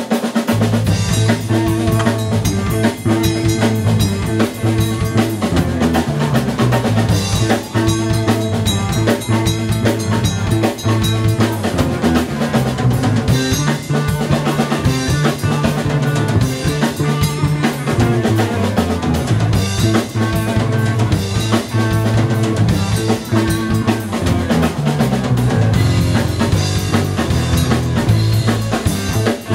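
Live band playing: a drum kit with bass drum and snare over electric bass and electric guitar, with the drums loudest.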